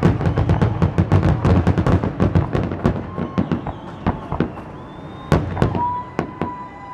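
Fireworks finale: a dense, rapid barrage of bangs that thins out after about two and a half seconds into scattered single bangs. A steady high tone sounds briefly partway through and again near the end.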